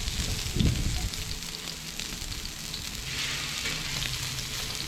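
Scallops searing in olive oil on a hot discada, a steady sizzle that swells about three seconds in. A brief low rumble comes shortly after the start.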